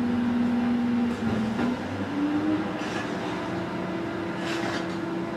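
Excavator diesel engine running, its pitch stepping up around two seconds in and holding higher, with two brief hisses near the middle and the end.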